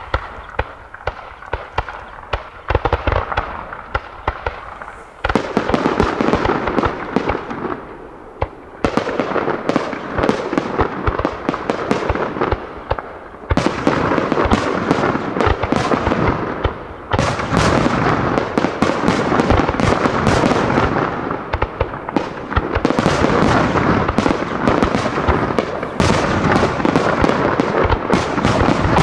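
Aerial fireworks barrage: many shells launching and bursting in quick succession, making a dense, continuous crackle of bangs. It comes in several waves that each start abruptly, growing louder and denser as it goes.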